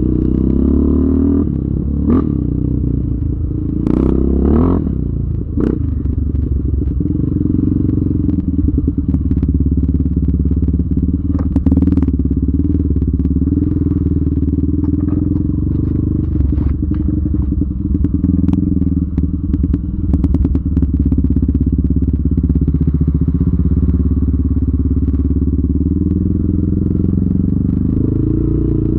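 Yamaha Raptor 700R's single-cylinder engine running while riding, its pitch rising and falling a few times in the first five seconds, then holding steady, with scattered knocks and clatter.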